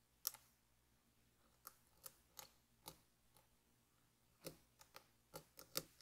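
Lock picking in an ASSA V10 lock cylinder: scattered small sharp clicks, about nine in six seconds, irregularly spaced, the loudest just after the start and near the end.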